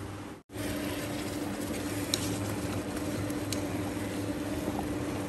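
Fried fish sizzling and bubbling in a fish-sauce, sugar, garlic and chilli glaze in a small wok, as a steady hiss with a constant low hum under it. A few light ticks of chopsticks against the pan. The sound cuts out briefly about half a second in.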